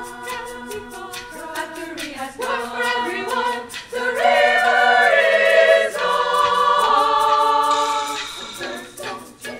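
Women's choir singing a cappella in harmony, swelling to its loudest in the middle and softening near the end.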